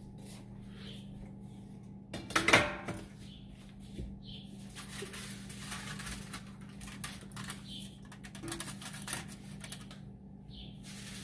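A stainless steel steamer tier clanking down once onto the steamer pot about two and a half seconds in, ringing briefly, followed by lighter metallic clinks and rattles as foil-covered leche flan molds are set into its perforated tray, over a steady low hum.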